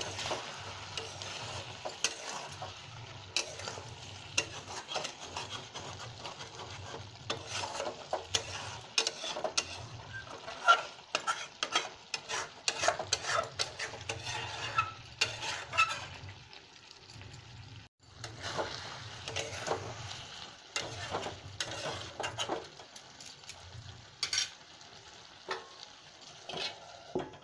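Chicken curry frying in a steel kadai on a gas stove: a steady sizzle with many sharp pops and clicks, dropping away briefly a little past the middle.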